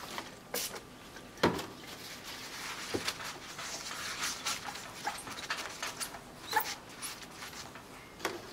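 Paper tissue wiping a small glass plate clean: a steady rubbing hiss, broken by a few sharp knocks against the glass tabletop (the loudest about one and a half seconds in) and brief squeaks of tissue on glass near the end.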